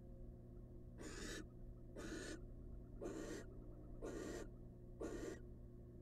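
Barn owl giving a series of hoarse hissing calls, five in a row about a second apart, over a steady low hum.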